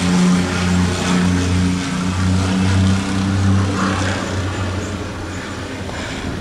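Propeller airplane flying low on final approach to land, its engine drone steady with a slight pulsing beat, fading away over the last couple of seconds.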